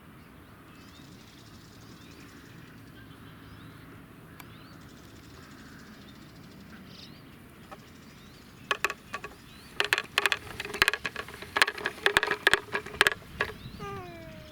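Faint birdsong for the first several seconds, then from about nine seconds in a rapid, irregular wooden clacking rattle lasting about five seconds: the toy chick on a wooden push-along baby walker working as the walker rolls. A brief falling call comes near the end.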